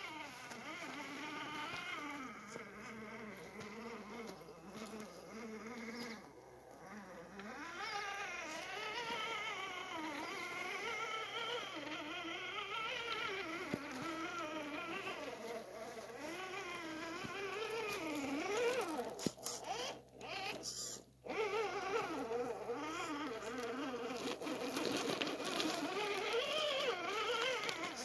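Electric motor and gear drive of an RC scale crawler (SCX10 II chassis) whining as it climbs rocks, the pitch rising and falling constantly with the throttle. The whine stops briefly twice about two-thirds of the way in.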